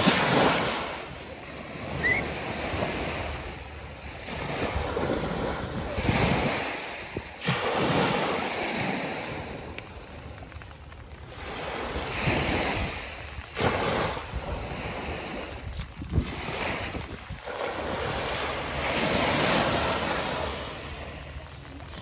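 Small waves breaking and washing up a sandy shore, the surf swelling and falling away every few seconds, with wind buffeting the microphone.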